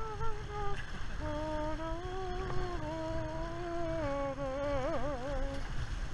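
A person humming a tune in held notes, the pitch wavering in a vibrato near the end before the humming stops shortly before the end, over a steady low wind rumble.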